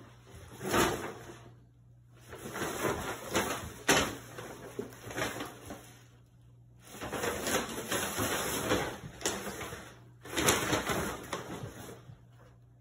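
Paper shopping bag crackling and scraping across a hardwood floor as a cat thrashes about inside it. The sound comes in about four bouts of rustling with short pauses between, and a couple of sharper knocks.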